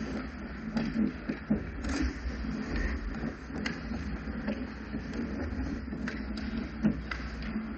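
Ice hockey rink during play: steady skate and ice noise over a low hum, with irregular sharp clacks of sticks and puck, the loudest a little before the end.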